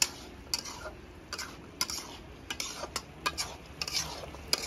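Steel ladle clinking and scraping against a steel kadhai while stirring and scooping thick, sticky date-jaggery syrup with whole dates: a quick, irregular run of clicks, two or three a second.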